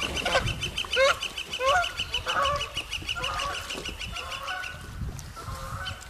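Goose honking repeatedly as it takes off from the water, the calls growing weaker over a few seconds. A rapid high ticking, about six a second, runs beneath the calls and stops about three-quarters of the way through.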